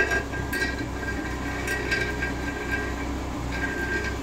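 Car engine idling, heard at the tailpipe as a steady low hum, with a thin high whine that comes and goes.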